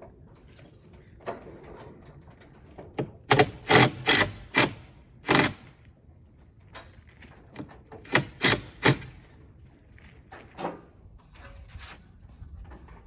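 Hand hammer blows driving nails, about five quick strikes a few seconds in and three more about eight seconds in, with a few lighter knocks between.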